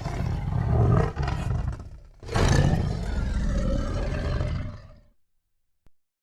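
Tiger roaring twice: a first roar of about two seconds, then a longer roar of nearly three seconds that fades out.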